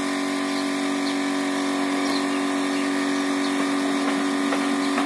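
Electric motor of foam-concrete block-making equipment running with a steady, even hum at a constant pitch.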